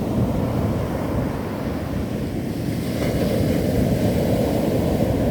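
Ocean surf breaking and washing onto the shore, with a steady low rumble of wind on the microphone. A wave breaks about three seconds in, and the surf grows louder and hissier.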